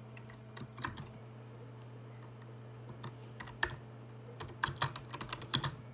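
Irregular light taps and clicks of fingers tapping, a few scattered at first, then coming in quick clusters in the second half, over a steady low hum.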